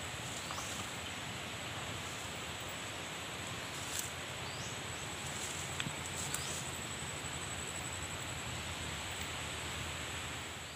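Outdoor undergrowth ambience: a steady high-pitched insect drone with a few short high chirps, and leaves rustling with a few sharp twig-like clicks about four and six seconds in as someone pushes through ferns and plants.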